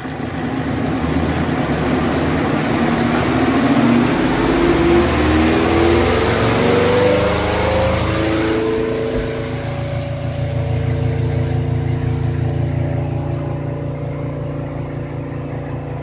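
Spin-dryer tub of a Giantex portable twin-tub washing machine spinning up with rinsed clothes. Its motor whine rises in pitch over the first several seconds, then runs steady over a low hum. A rushing hiss dies down after about ten seconds.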